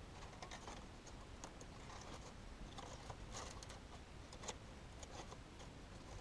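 Dry, dead sticks clicking and tapping faintly as they are handled and woven into a stick cage trap: light, irregular clicks against a quiet background.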